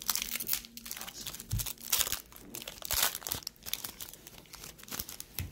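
Foil wrapper of a Panini football trading card pack crinkling and tearing as it is pulled open by hand: irregular crackles, with louder rips about two and three seconds in.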